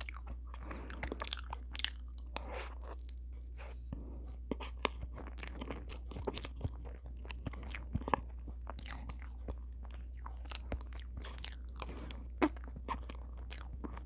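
Close-miked eating of soft cheesecake from a spoon: wet chewing, lip smacks and sticky mouth clicks, irregular and several a second, over a steady low hum.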